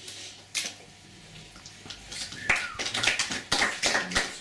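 A couple of sharp clicks, then from about two and a half seconds in a quick flurry of finger snaps from a small audience: snapped applause at the end of a poem.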